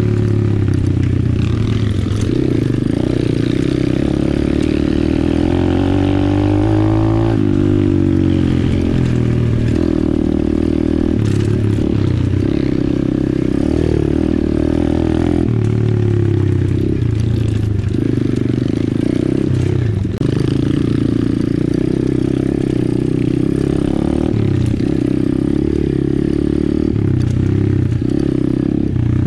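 Apollo RFZ 125cc pit bike's single-cylinder four-stroke engine running under way on a trail ride, revs rising and falling with the throttle, with one longer climb about six seconds in that drops off sharply.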